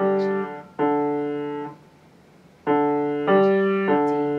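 Piano played slowly by beginning students: five single low notes struck one after another, each left to ring and fade, with a pause of about a second near the middle.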